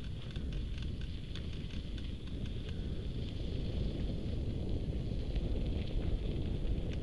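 Wind buffeting an action camera's microphone during a bicycle ride, a steady low rumble, with the crackle of the tyres rolling over a gravel track and small rattles from the bike.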